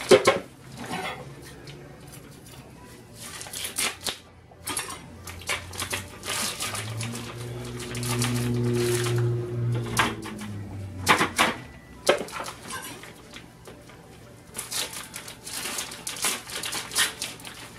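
Crinkling and crackling of plastic vacuum packaging being handled and opened, with scattered clicks and knocks of plastic parts. A low hum lasts about three seconds in the middle.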